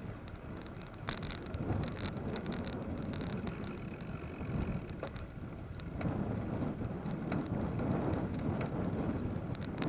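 Rumbling wind and road noise from a cross bike being ridden, with scattered light clicks and rattles, a little louder after about six seconds.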